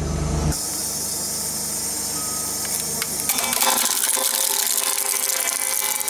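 Road roller's engine running as its steel drum rolls over a plastic toy water gun, crushing it with a crack about three seconds in. A loud hissing noise follows.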